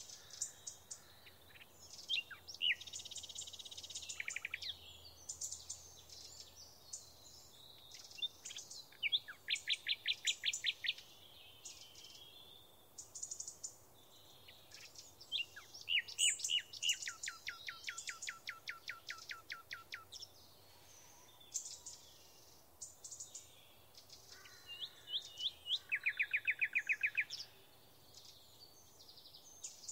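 Small songbirds singing: scattered chirps and several rapid trills of short, evenly spaced notes, the longest lasting about four seconds.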